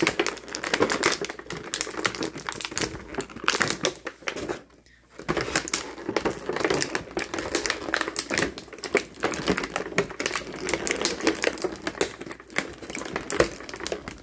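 Clear plastic blister-pack tray crackling and clicking as hands flex it and pull plastic toy armor pieces out of it. The crackling is dense and irregular, with a short pause about five seconds in.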